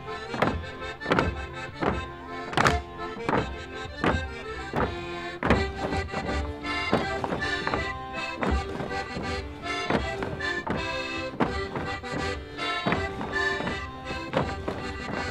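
Folk dance music with steady held reed-like tones, overlaid by the knocking of wooden clogs on a wooden dance floor, about two knocks a second.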